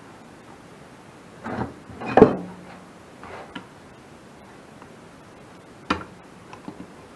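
Knocks and clicks of things being handled on a workbench while a tube is readied. A sharp knock about two seconds in is the loudest and leaves a short low ring; a sharp click follows near the end.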